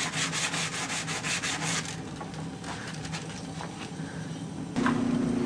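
Hand sanding of polyester gelcoat on a fiberglass Laser daggerboard with 220-grit sandpaper wrapped around a small wooden block: quick, even back-and-forth strokes, softer after about two seconds. Near the end a steady low hum starts.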